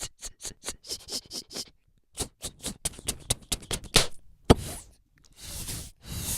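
Mouth sound effects made with the voice alone: runs of quick clicks and pops with a short pause between them, then a hiss near the end.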